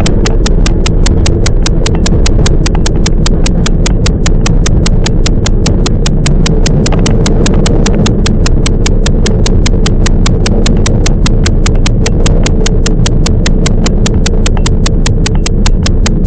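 Electric train running at steady speed: a heavy low rumble with a sharp, even clicking, about five knocks a second, that keeps the same rate throughout.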